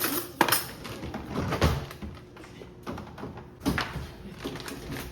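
Food containers and other items being knocked about and set down while a refrigerator is restocked: a few separate knocks and clatters, the loudest about half a second in and others about a second and a half and nearly four seconds in.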